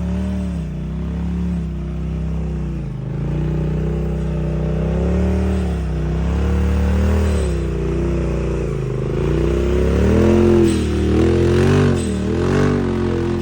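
Side-by-side UTV engine revving up and down again and again under load as it claws up a muddy hill. The throttle swings come quicker near the end.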